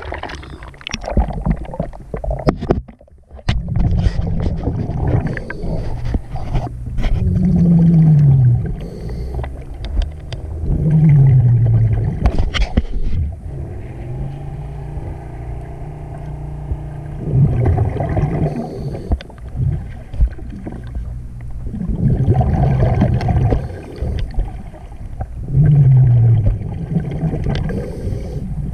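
Underwater sound: splashing as the camera goes under, then a steady low motor hum with a loud bubbling rush every four to five seconds, typical of a scuba diver's exhaled bubbles. Some of the rushes carry a short falling tone.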